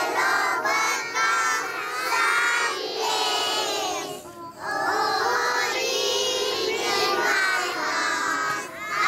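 A large group of young children singing a prayer in unison, in long phrases with a short pause for breath about four seconds in and again near the end.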